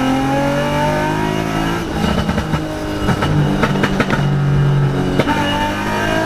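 Car engine under full throttle on a dyno, its note climbing steadily as it pulls through the revs. About two seconds in the throttle closes, and the exhaust pops and crackles repeatedly over the lower engine note as it winds down.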